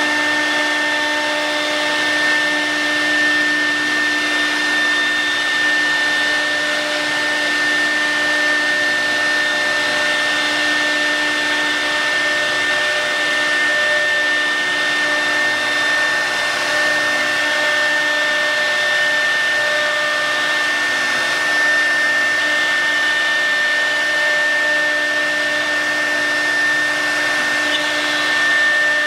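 CNC router running, its spindle giving a steady high whine over a constant rushing hiss that holds unchanged throughout.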